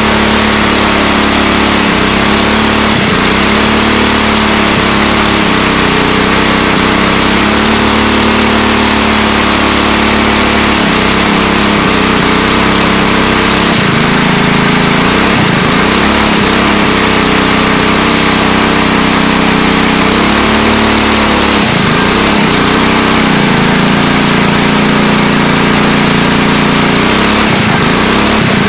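A 212cc single-cylinder four-stroke engine on a small quad runs hard through a torque converter during a burnout, spinning the rear tire on asphalt. The engine note dips briefly and climbs back several times.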